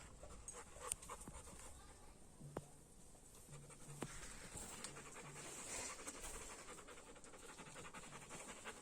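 A dog panting, faint and uneven, with a few sharp clicks.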